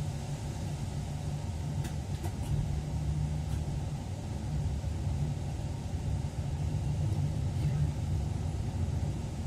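Electric train running steadily on the track, heard from inside the driver's cab as a continuous low rumble. A few faint ticks come about two seconds in.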